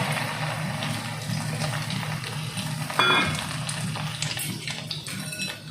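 Breaded vegetable cutlets sizzling as they deep-fry in hot oil, a steady hiss and crackle, with one short sharper sound about three seconds in.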